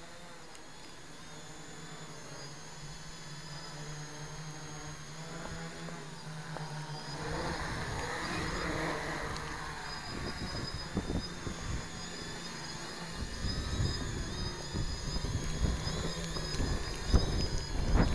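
Quadcopter with MS2216 900kv brushless motors and 10x4 wooden propellers flying, its steady motor and propeller buzz growing louder as it comes closer. From about two-thirds in, a gusty low rumble buffets under the buzz.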